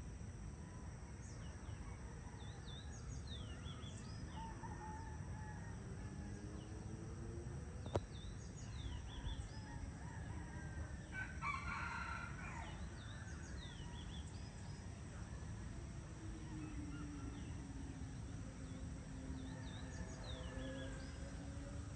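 A rooster crows once about halfway through, harsh and noisy, amid scattered short chirps of small birds over a steady low rumble of outdoor ambience. A single sharp click comes about eight seconds in, and long, low, gliding calls follow near the end.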